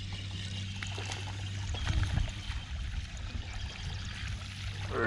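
Water splashing and trickling as a hooked fish is played in shallow water, with a few light clicks.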